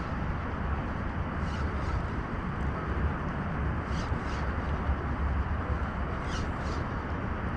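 Steady low rumble on the microphone while a spinning rod and reel are worked from the bank. Faint short swishes come in pairs about every two seconds.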